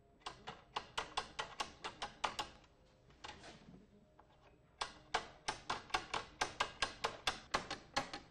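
Light, rapid tapping on a metal organ pipe laid over a rod, knocking out dents, about four taps a second. The taps stop for about two seconds midway, then resume.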